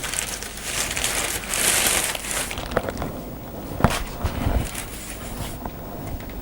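Parcel packaging rustling and crinkling as it is opened by hand, followed by a few sharp clicks, the loudest about four seconds in.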